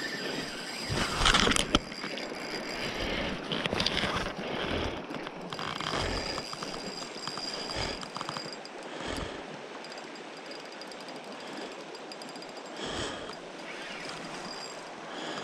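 Spinning reel being cranked to retrieve a lure, its gears whirring and clicking faintly, over the steady rush of a river. A brief louder rustle about a second in.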